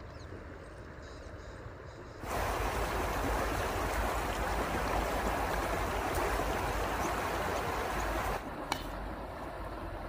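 Steady rushing noise of a river flowing, with wind rumbling on the microphone. It gets noticeably louder about two seconds in and drops back again near the end.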